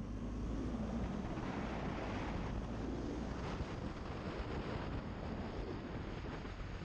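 Steady wind rush over the microphone of a moving BMW GS adventure motorcycle, with the low drone of its engine underneath at cruising speed.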